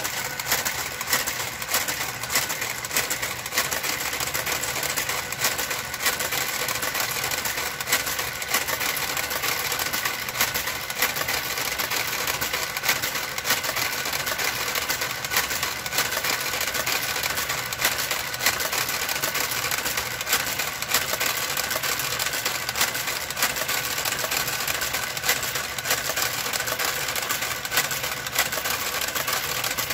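Brother KG-93E motorised garter carriage running along a knitting machine's needle bed: a steady motor hum with frequent irregular clicks as it works the needles.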